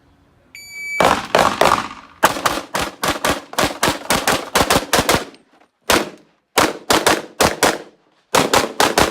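An electronic shot-timer start beep, then rapid strings of pistol shots with short pauses between strings, each shot followed by a brief echo.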